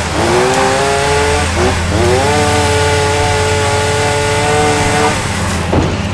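Chainsaw revved to full throttle twice: it climbs in pitch, dips briefly, climbs again and holds steady for about three seconds before dropping off near the end. A steady low engine drone runs underneath.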